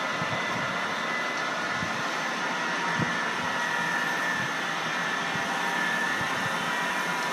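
Lionel model trains running on a layout, a steady rolling noise with a faint knock about three seconds in, heard through a television's speaker.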